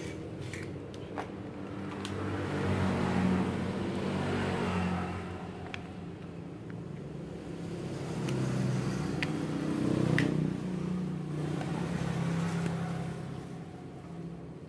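Low hum of a running engine that swells louder twice, with a few short, light clicks of plastic parts being fitted onto a rotary hammer's housing.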